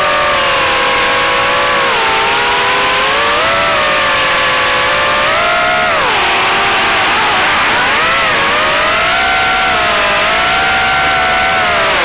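HX115 FPV quadcopter's motors and propellers whining in flight, the pitch rising and falling as the throttle changes, with a deep dip in the middle.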